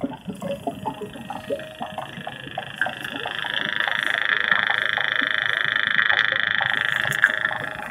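A long, frog-like buzzing trill that swells in about three seconds in, holds steady, and fades out near the end, over faint scattered clicks and crackles.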